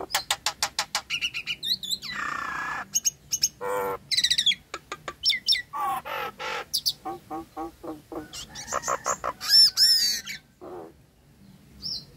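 Nias hill myna calling: a fast string of clicks and short whistled notes, a harsh rasping squawk, and loud wavering whistles about ten seconds in, after which it stops.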